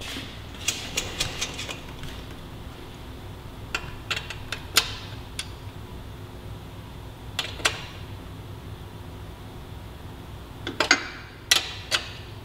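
Metal wrenches clicking and clinking in short, irregular clusters of sharp clicks as a motorcycle chain adjuster's jam nut is held with one wrench and tightened with another.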